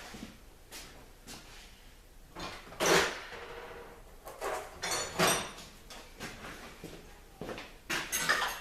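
Metal parts and tools being handled on a workbench: a few separate clanks and clatters, loudest about three seconds in, one with a brief metallic ring about five seconds in.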